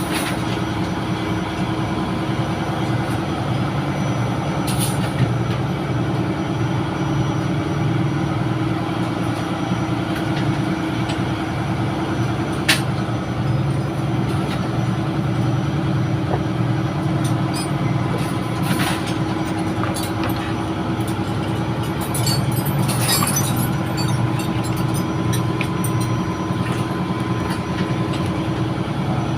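Steady drone of running ship's engine-room machinery with a constant low hum, and a few sharp metallic clicks and taps of hand tools on a starter motor being taken apart, most of them bunched about three-quarters of the way through.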